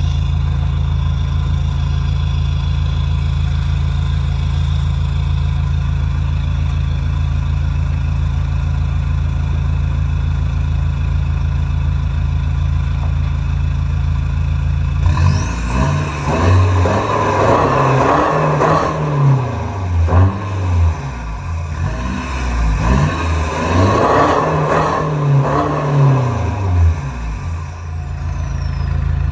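Mercedes-Benz C220 CDI (W203) four-cylinder turbodiesel heard at its exhaust tailpipes, idling steadily, then revved in a series of blips about halfway through, its pitch climbing and dropping with each one. It settles back to idle near the end.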